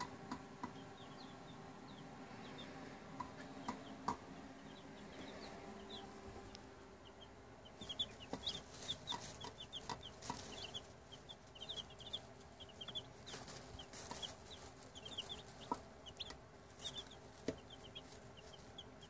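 Four-day-old chicks peeping in a brooder: many short, high cheeps, sparse at first and much busier from about eight seconds in, over a faint steady hum.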